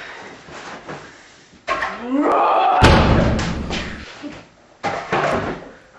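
A sudden pitched sound rising in pitch, then a loud slam-like crash about three seconds in with a low rumble that lasts about a second, and a shorter thud near the end.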